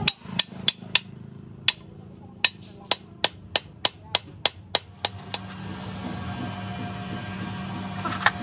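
Hammer tapping the pinion gear's bearing cage down into a Nissan truck differential carrier housing: a quick run of about fifteen sharp, ringing metal blows, roughly three a second, then one more blow near the end. A steady low hum sits underneath in the second half.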